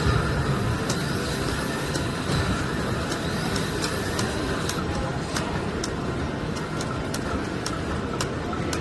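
Busy casino-floor ambience: a steady hubbub of slot machines and crowd, with scattered sharp clicks throughout.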